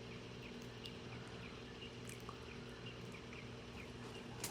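Quiet outdoor background: faint short chirps repeating a few times a second over a low steady hum.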